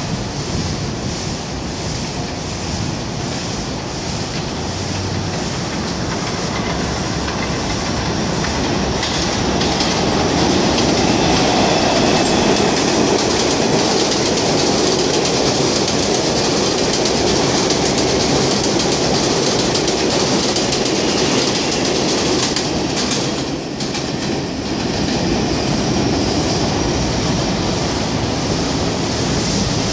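New York City Subway R142 train running along the elevated track past the platform, its wheels clattering over the rail joints with some wheel squeal. The sound grows louder about a third of the way in and stays loud until a brief dip near the end.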